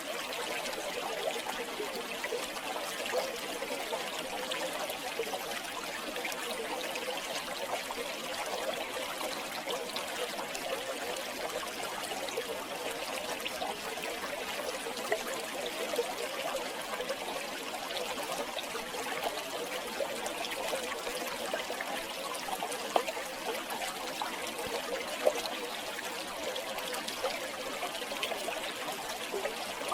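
River water flowing and trickling steadily, with small splashes and gurgles throughout.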